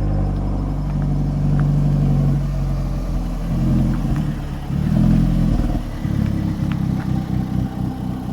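Alfa Romeo 4C's turbocharged 1.75-litre four-cylinder engine running steadily at first; from about three seconds in its sound turns choppy and uneven.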